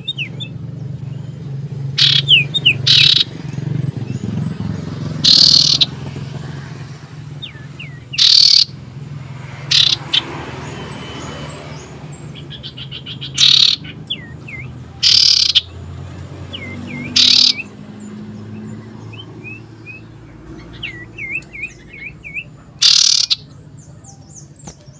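Common iora calling loudly in short, emphatic bursts about every one to five seconds, with softer quick chirps and whistled notes between them. These are territorial calls aimed at a rival bird nearby.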